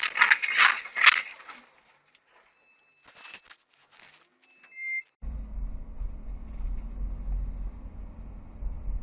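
A burst of loud clattering and banging in the first second or so, then a few seconds of near quiet with a couple of faint beeps. About five seconds in, a steady low road rumble of a car driving, heard from inside the car, takes over.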